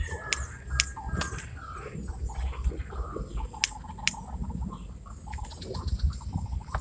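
Outdoor pond-side ambience: birds chirping now and then over a steady low rumble and a thin, steady high-pitched tone. A few sharp clicks stand out, two early on and two near the middle.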